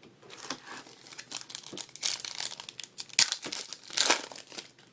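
A 2012 Panini Prestige card pack's wrapper crinkling and tearing open, in an uneven run of crackles that is loudest about halfway through and again near the end.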